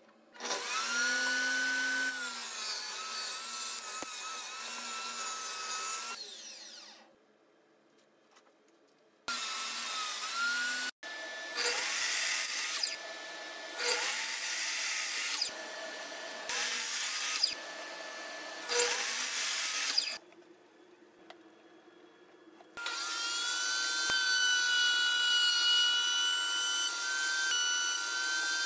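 Power saws cutting wooden boards: a saw motor runs with a steady whine for about six seconds, then a sliding miter saw makes a series of short cuts of one to two seconds each, and near the end a saw runs steadily again while a board is fed along the fence.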